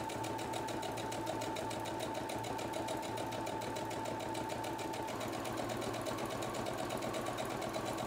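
Brother electric sewing machine running steadily, sewing a zigzag stitch, with a rapid even needle rhythm and a motor whine that shifts slightly in pitch about five seconds in.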